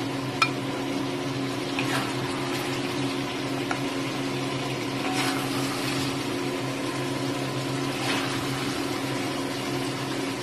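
Chicken humba in its sauce poured from a bowl into a wok: wet splashing of liquid, with a few light clicks and two louder swells of noise, over a steady low hum.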